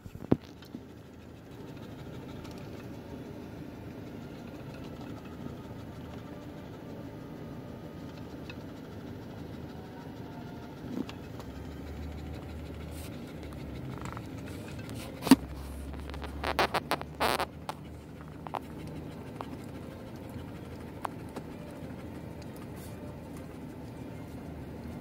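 Steady low hum of a car's interior. About fifteen seconds in there is a sharp click, followed a second later by a short flurry of clicks and rustles.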